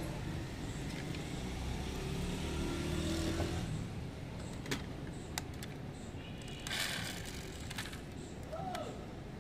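Low rumble of a motor vehicle passing in the first few seconds. Then two sharp clicks and a short rustle as metal diecast model cars are handled in a plastic tub.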